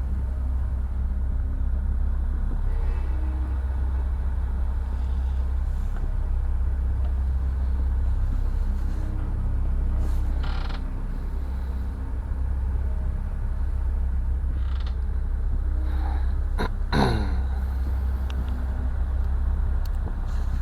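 Steady low hum with a few light clicks and taps from small wooden model parts being handled and set down, and one short falling squeak near the end.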